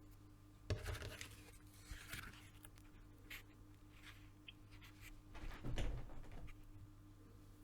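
Intermittent scratching and rustling of hand leatherwork, with louder bouts about a second in and around six seconds, over a faint steady hum.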